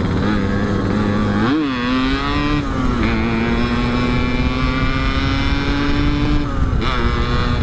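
Yamaha RX-King two-stroke single-cylinder engine running under way without an air filter. About a second and a half in it revs briefly; it then pulls steadily with its pitch creeping up, and eases off near the end.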